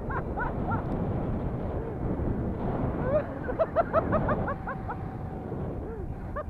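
A man laughing in quick, high-pitched runs of "ha-ha-ha", at the start, again from about three and a half seconds in, and briefly at the end, over the steady low rumble of an off-road electric skateboard's wheels on pavement and wind.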